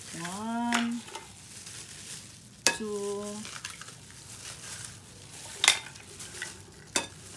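Raw eggs being cracked against a bowl's rim: three sharp knocks, one about three seconds in and two more near the end. Two short wordless hums from the cook come near the start and right after the first knock.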